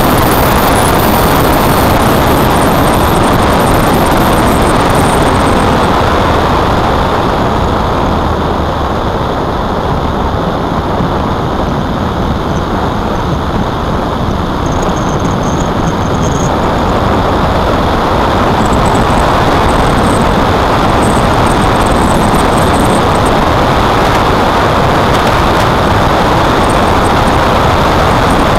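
Steady rush of wind on the microphone mixed with tyre and road noise from a moving vehicle. It eases a little for several seconds mid-way, then rises again.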